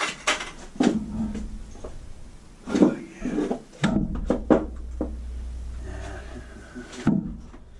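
Several sharp knocks and clunks at irregular intervals, with a steady low rumble from about four seconds in to about seven.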